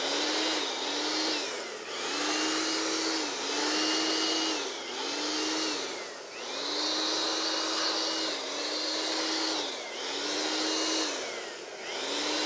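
Small handheld electric blower blowing out the inside of a sewing-machine clutch motor. It is fired in short blasts of one to two seconds, about eight in a row, and with each one the motor's whine rises, holds steady over a rush of air, then falls away.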